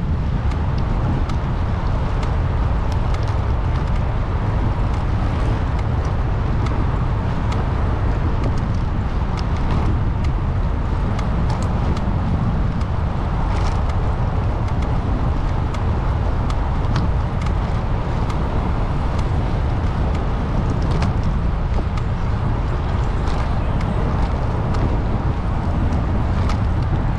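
Steady running noise of a car being driven, a low rumble of road and engine, with faint scattered ticks.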